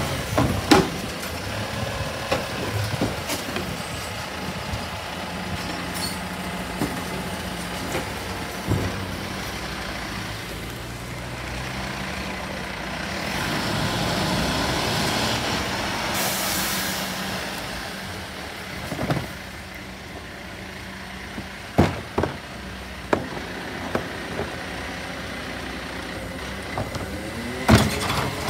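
Rear-loader recycling truck's engine running as it moves and works, louder as it passes by, with a sharp hiss of air brakes a little over halfway through. Several sharp clunks come in the second half.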